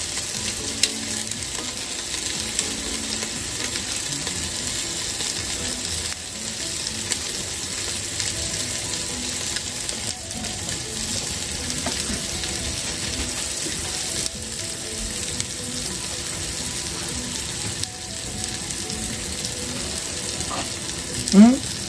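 Floured fish fillets sizzling steadily in oil in a frying pan. A short rising squeak near the end is the loudest sound.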